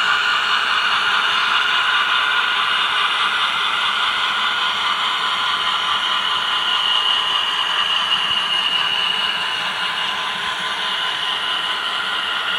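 HO scale model freight cars rolling past on the track: a steady whirring rattle of small wheels on rail that eases slightly near the end.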